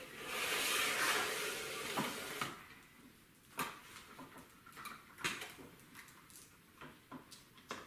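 Multimeter test leads being handled: a rustling hiss for the first two seconds or so, then a handful of light, scattered clicks and taps as the metal probe tips are set against a speaker's terminals.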